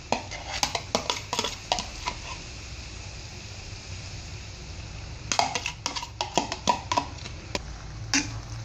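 Sharp clinks and knocks of a spatula and a plastic sauce container against a large metal pan of noodles, in two clusters of taps, as sauce is added and stirring begins.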